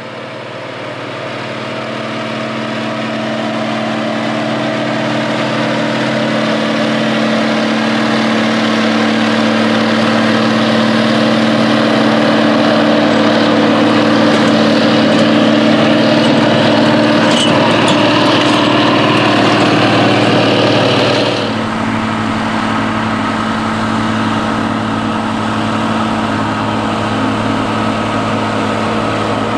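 John Deere WA-14's 855 cubic-inch Cummins diesel engine running steadily under load while the tractor pulls a moldboard plow, growing louder as it comes close. About two-thirds of the way through the sound drops suddenly, and the engine then runs on steadily at a somewhat lower level.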